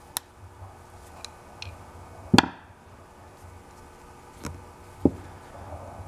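A few sharp, separate clicks and knocks, the loudest about two and a half seconds in, as the stiff brush holder on the end bell of a 1920s Century repulsion-start induction motor is forced round by hand. The motor itself is not running.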